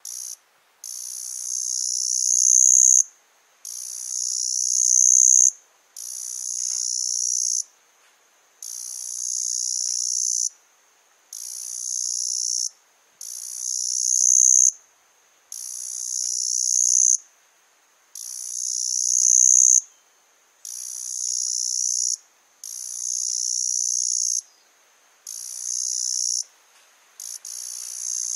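A single cicada calling: a high-pitched buzz repeated about a dozen times, each call lasting roughly two seconds and swelling louder before cutting off sharply, with short pauses between calls.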